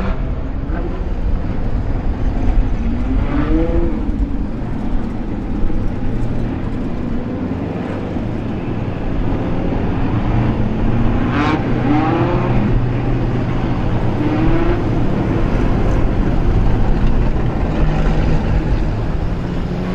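Several street stock speedway cars' engines running on track, their notes rising several times as the cars accelerate.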